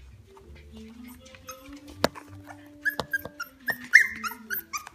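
Five-week-old Norfolk Terrier puppies giving short, high-pitched whimpers and squeaks, the loudest about four seconds in, with a few sharp clicks among them.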